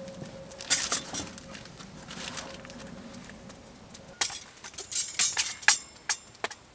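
Sharp clicks, clinks and knocks of a folding wire grill rack and metal cookware being handled and set down on a wooden stump, in a short cluster about a second in and a busier run of clatter from about four seconds in.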